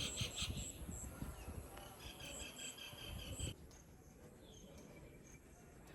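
Wildlife chirping: a fast, evenly repeated run of high chirps that stops abruptly about three and a half seconds in, leaving fainter high chirps at a regular pace over a low background rumble.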